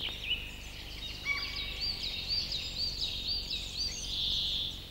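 Woodland songbirds singing: a series of short, arched high notes repeated about three times a second, with a brief lower trill about a second in. A short hissing buzz near the end is the loudest sound.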